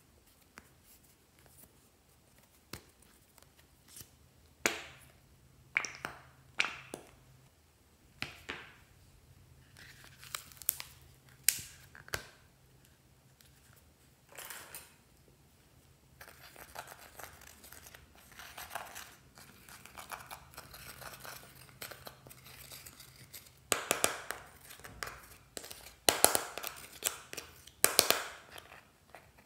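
Close handling noises: scattered clicks and crinkles from plastic packaging, then a metal spatula scraping pressed eyeshadow out of plastic palette pans, the scratching loudest in the last few seconds.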